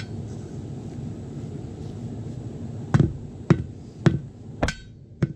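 Hammer blows on a tire bead at the wheel rim while the tire is dismounted by hand: five sharp strikes with a short metallic ring, about half a second apart, starting about three seconds in. Before them, a low steady rumble.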